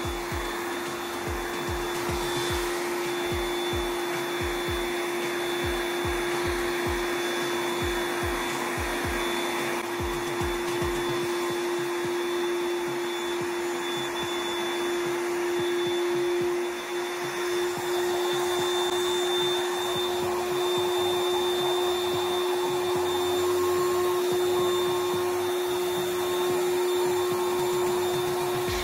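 Built-in electric Fast-Fill air pump of an Intex Queen Durabeam Plus airbed running, blowing air into the mattress as it inflates: a steady whirring rush of air with a constant hum tone, and a soft low ticking for roughly the first ten seconds.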